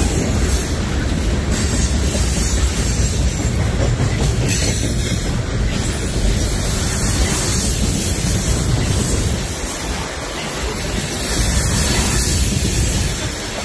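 Freight train rolling past: a steady, loud rumble of wheels on rail, easing slightly about ten seconds in.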